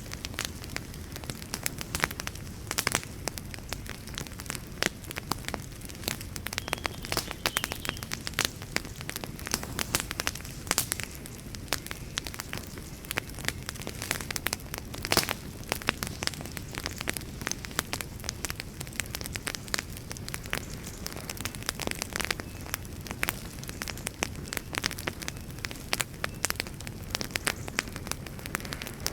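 Wood fire burning with a steady low rumble and many sharp, irregular crackles and pops as the logs burn.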